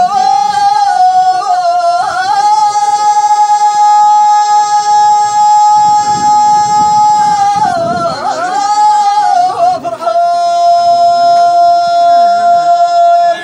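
A man singing tamawayt, the unaccompanied Amazigh chant, in a high voice. He holds one long high note from about two seconds in to past seven, ornaments it with wavering turns, then holds another long, slightly lower note from about ten seconds to the end.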